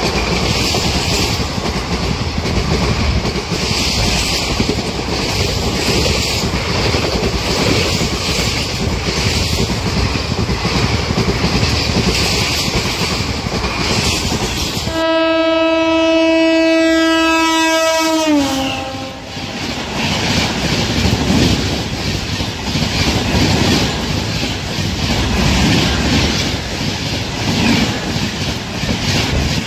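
Indian Railways train rushing past at speed, a loud, dense rumble. About halfway through, a locomotive horn sounds one long note for a few seconds, and its pitch drops as the engine passes. The passing train's noise carries on after it.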